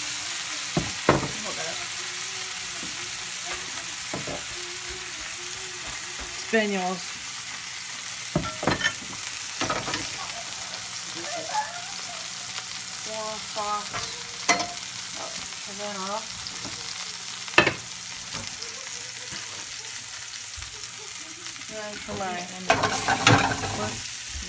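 Hot oil sizzling steadily in frying pans as tortillas are softened in it and vegetables sauté. Sharp clicks of metal tongs against the pan come now and then, the loudest about two-thirds of the way through, with a cluster near the end.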